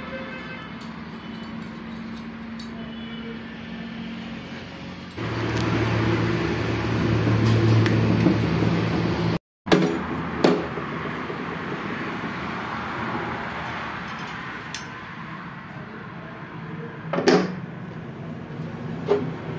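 Scattered metallic clinks and knocks of main bearing caps and other engine parts being handled around a Massey Ferguson tractor's engine block with its crankshaft in place. The loudest is a sharp clank near the end. Under them runs a steady low hum that grows louder for a few seconds around the middle.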